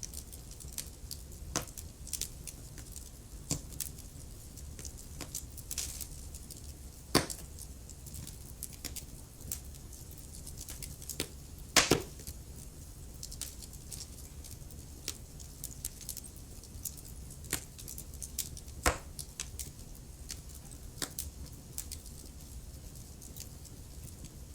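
Wood fire crackling in a fireplace: irregular sharp pops and snaps over a low, steady rumble of burning, with a few louder pops, one small cluster about midway.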